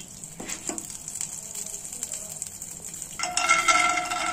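Oil crackling faintly as it heats in a nonstick frying pan. About three seconds in, peanuts are poured from a steel bowl and clatter into the pan, with a metallic ringing.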